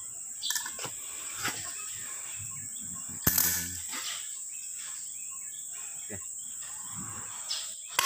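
Steady high-pitched insect drone in the background, with a few light metallic clinks from parts of a backhoe's rear axle hub being handled. One sharper clink comes about three seconds in.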